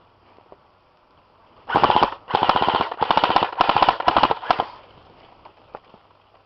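Airsoft gun firing on full auto in four or five quick bursts of rapid clicks lasting about three seconds, starting a couple of seconds in.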